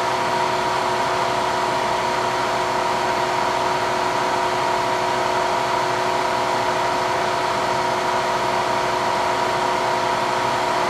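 An amplifier's thermostat-controlled high-speed cooling fan running steadily, switched on because the heat sink has warmed to the set temperature: an even rush of air with several steady whining tones.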